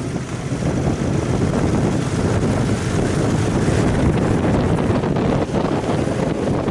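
Riding noise of an Aprilia Caponord 1200 motorcycle pulling away to about 30 km/h: wind rumbling steadily on the onboard camera's microphone, with the bike's running sound underneath.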